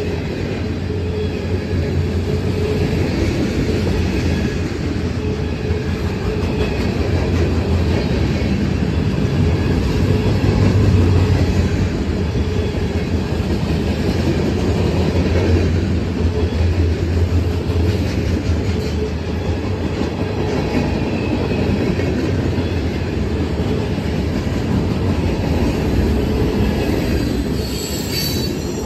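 Cars of a CSX freight train rolling past close by: a steady, loud rumble of steel wheels on the rails, with a faint wheel squeal over it.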